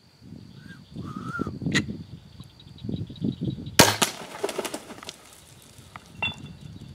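A bow shot at a feral hog: a sharp crack of the string and the arrow's hit about four seconds in, followed by a second of clattering as the hog scrambles off over loose rocks.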